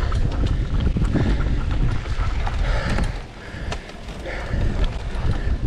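Wind buffeting the microphone over the rumble and rattle of a mountain bike ridden along a dirt trail, with scattered sharp clicks and knocks. It drops quieter for about a second just past the middle, then picks up again.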